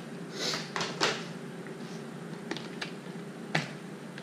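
A desk phone handset being hung up, then typing on a computer keyboard: a handful of separate key clicks spread out, with a few pauses between them.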